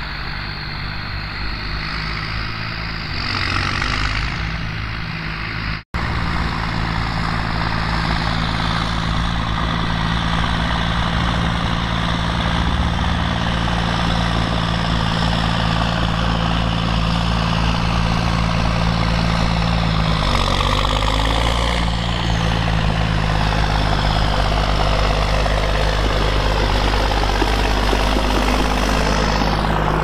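New Holland 8360's 7.5-litre six-cylinder turbocharged diesel running loud under load while pulling a sugar-beet trailer. The engine note dips briefly about twenty seconds in, then picks up again.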